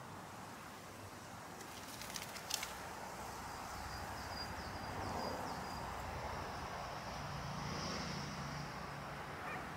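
Outdoor garden ambience: a faint steady hiss with small birds chirping a few times, and a short cluster of crackling clicks about two seconds in.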